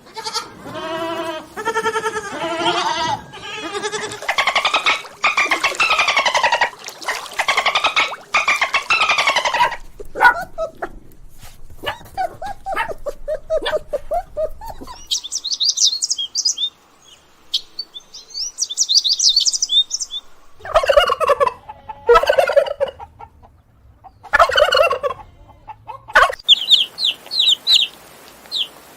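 Farmyard poultry calling in a run of separate clips: harsh, repeated calls alternating with bursts of high, rapid chirping.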